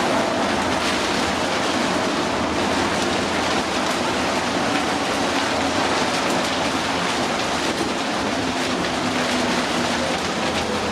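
Steady interior ride noise of a New Flyer D60LFR articulated diesel bus under way in heavy rain: a dense rush of rain and wet-road noise with a faint whine from the drivetrain that drops in pitch near the end.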